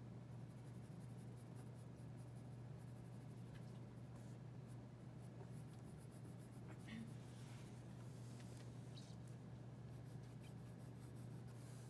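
Pencil scratching faintly on sketch paper in short strokes, over a steady low hum.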